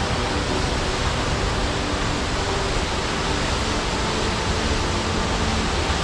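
Steady rushing of a tall waterfall plunging into a rocky stream.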